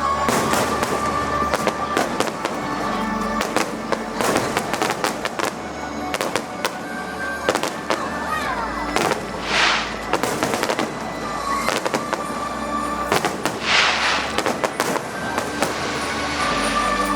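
Fireworks display going off: many rapid bangs and crackles, with two longer hissing bursts, one about halfway through and one near the end.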